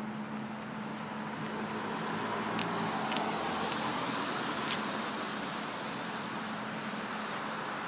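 Road traffic noise: a vehicle passes, its noise swelling a couple of seconds in and fading again, over a steady low hum and a few faint clicks.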